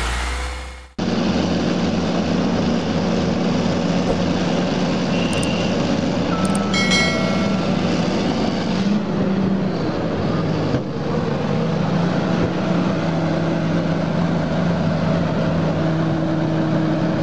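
Bulldozer's diesel engine running steadily under work, with a brief high squeal about six to seven seconds in.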